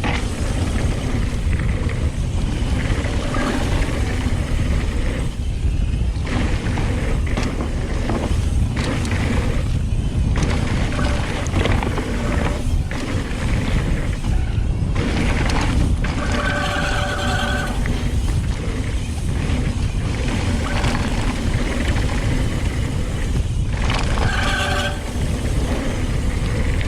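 Mountain bike riding a jump trail: steady wind rush and tyre rumble, with two brief squealing tones partway through.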